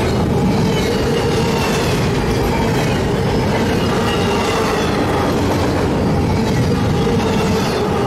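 Double-stack intermodal train's loaded well cars rolling past at steady speed: a constant rumble and clatter of steel wheels on rail, with a thin steady wheel squeal over it.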